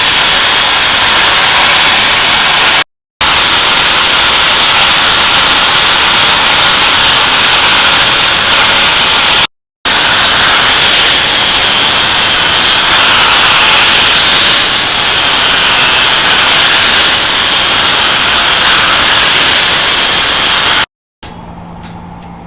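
Power grinder abrading the steel of a knife blade: a very loud, steady, harsh hiss with a faint high whine that shifts in pitch. It breaks off abruptly twice for a moment and stops near the end.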